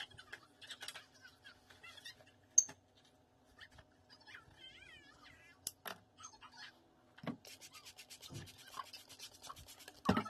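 A styling brush dragged through thick type 4 coily hair, making scratchy rubbing strokes that come thick and fast over the last few seconds. There is one sharp click about two and a half seconds in.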